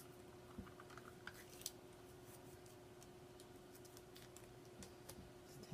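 Near silence with faint scattered clicks and light handling sounds, typical of fingers working food packaging and a dipping-sauce cup, over a steady low hum.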